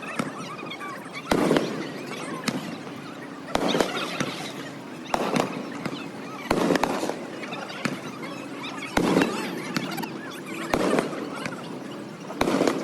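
Aerial fireworks going off: about eight sharp booms, roughly one every one to two seconds, each trailing off, over a steady crackle of bursting shells.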